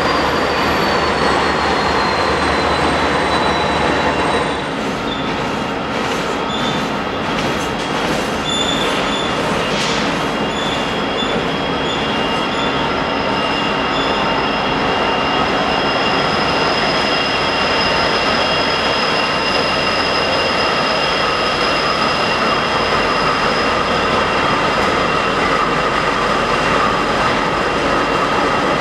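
Several BNSF diesel-electric freight locomotives, GE and EMD SD70MAC units, rolling slowly past with engines running and wheels rumbling on the rails. Steady high-pitched wheel squeal runs over it, one squealing tone sliding down in pitch in the first few seconds. A few sharp clicks and knocks come from the wheels on the track between about 6 and 10 seconds in.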